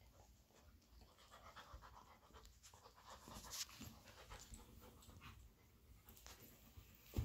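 Faint panting and scuffling of two dogs play-wrestling, with irregular soft rustles and mouthing noises.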